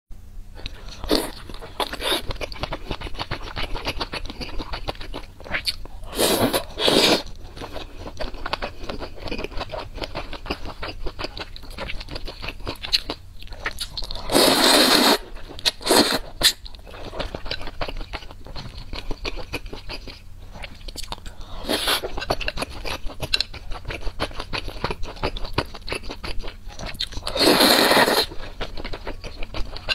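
Close-miked eating of spicy noodle soup: wet chewing and lip smacking throughout, broken by several loud slurps of noodles, the longest about halfway through and near the end.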